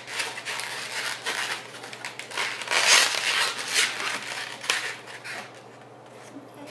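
Latex modelling balloons being handled and twisted, the rubber rubbing against itself in a run of scratchy strokes that is loudest about three seconds in and thins out near the end.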